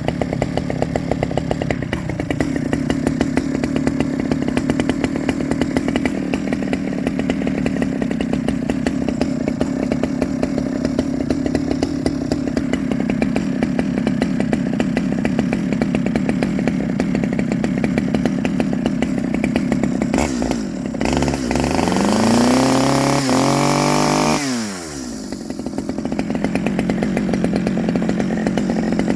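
Stihl 009 top-handle chainsaw's small two-stroke engine running at idle with rapid firing. About twenty seconds in it is revved up for a few seconds, then drops quickly back to idle. The owner finds it running way too rich.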